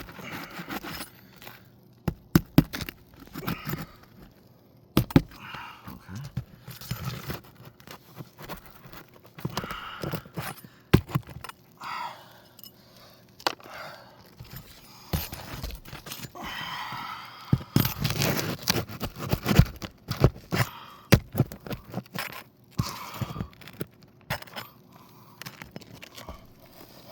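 Metal roofing pry tool (roof snake) scraping and prying under asphalt three-tab shingles to break their seal and work the nails loose, with irregular sharp clicks and knocks, busiest about two-thirds of the way through.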